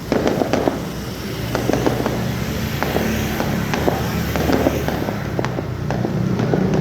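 Fireworks going off: a rapid run of sharp pops, bangs and crackles, over a steady low rumble.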